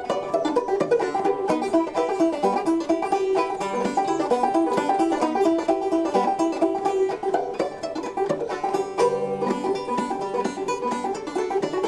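Clawhammer banjo playing an old-time tune, a quick, even run of plucked notes.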